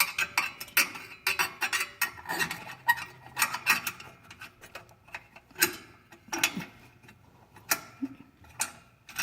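Metal hand tools clinking and rattling as they are handled in a tool box, a run of irregular clicks and knocks, some in quick clusters.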